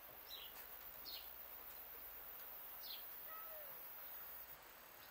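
Faint bird chirps: a few short, high, falling notes spaced about a second or two apart, plus one lower sliding call near the middle, over a steady background hiss.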